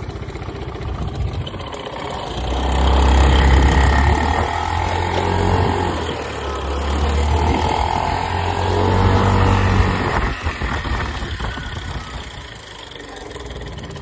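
PGO Jbubu scooter engine under way on a test ride: it picks up about two seconds in, runs hard with two surges, and eases off after about ten seconds. The abnormal idle noise fades at speed and slowly grows again as the scooter slows, which the mechanic takes for a failing cam chain tensioner.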